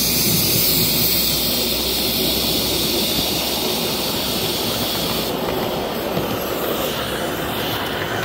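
5-inch gauge model GWR 15xx pannier tank steam locomotive running along the track: a steady rushing hiss and rumble of the engine under way. The high hiss eases about five seconds in.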